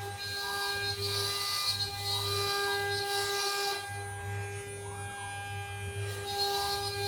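CNC machine cutting a decorative partition panel: a steady motor whine and hum, with a harsher cutting noise for the first half, easing off in the middle, and starting again near the end.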